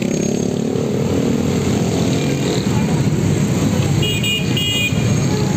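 Dense street traffic of motorcycles and cars moving through a crowd, engines running with one engine's pitch rising near the start. Two short horn toots about four seconds in.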